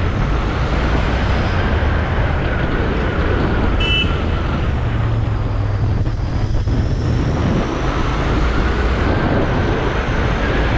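Royal Enfield Interceptor 650's parallel-twin engine running steadily at cruising speed, with wind and road noise over it from the rider's seat. A short high beep sounds about four seconds in.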